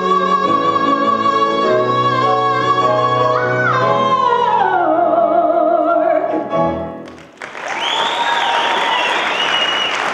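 A woman singing the final note of a song over instrumental accompaniment: one long high held note, then a brief lift and a slide down into a closing note with vibrato. About seven seconds in, an audience breaks into applause.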